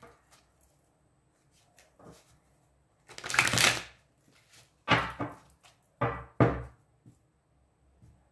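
A tarot deck being shuffled by hand, with a loud riffling flutter of cards about three seconds in, then the deck cut and set down on a table in a few sharp knocks.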